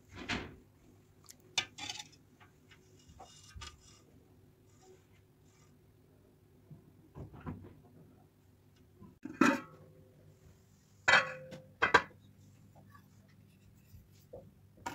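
A metal ladle knocking against the side of a metal cooking pot of okra stew, a handful of separate clinks with quiet between, the loudest three in the second half, one leaving a short metallic ring.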